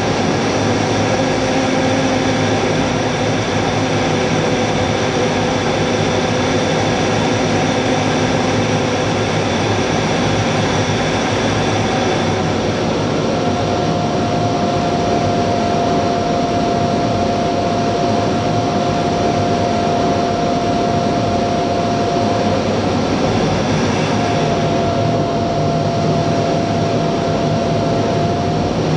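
Steady cockpit noise of an A-10 in flight, heard from inside the cockpit: its twin General Electric TF34 turbofans and the airflow make a constant loud noise, with a steady whine that drops slightly in pitch about halfway through.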